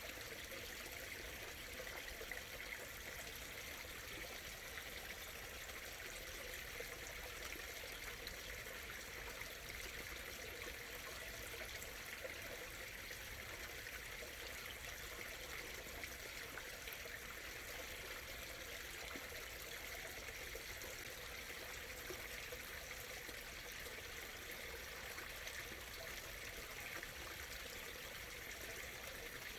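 A small stream murmuring and trickling steadily over stones, an even rushing with no pauses.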